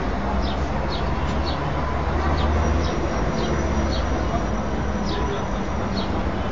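Small birds chirping, a string of short high chirps, over a steady low rumble of background noise.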